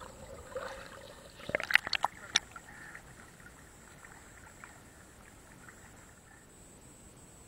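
River water splashing around a half-submerged camera as a dog swims and a man wades, with a burst of sharp splashes and knocks about a second and a half in, then only a faint steady hiss.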